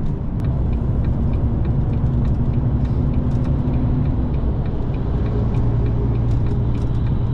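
Heavy goods lorry's diesel engine running as it drives carrying a heavy load, heard as a steady drone from inside the cab. The engine note changes about four and a half seconds in.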